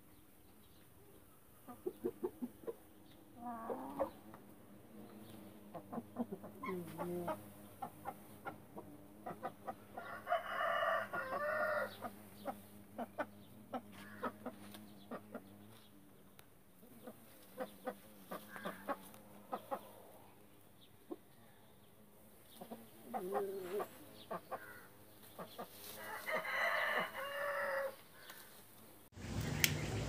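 Aseel rooster clucking and calling, with two longer drawn-out calls about ten seconds in and again near the end, among many short clicks.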